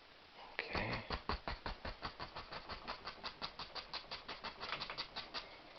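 A stiff-bristled paintbrush tapped rapidly and evenly, about five dull taps a second for roughly five seconds: stippling acrylic paint to build up tree foliage.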